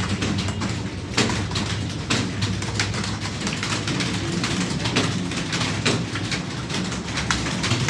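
Several computer keyboards being typed on at once, a rapid, irregular clatter of keystrokes.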